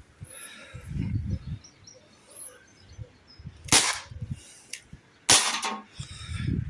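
Dan Wesson .357 replica CO2 pellet revolver firing two sharp shots about a second and a half apart, the second followed by a brief ring.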